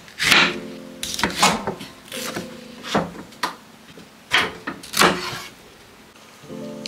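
Large kitchen knife cutting broccoli on a wooden cutting board: about eight or nine sharp, irregular chops as the blade cracks through the stems and hits the board.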